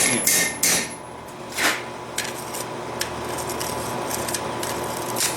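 Hammer blows on steel forging tooling, a few irregular strikes, the loudest in the first second, with a steady faint hum underneath.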